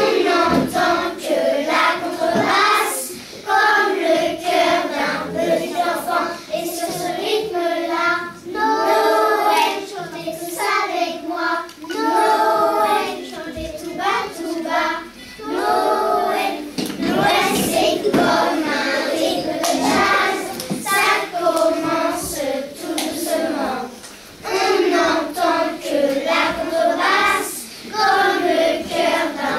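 A group of young children singing a song together as a class choir, in phrases with short breaths between them.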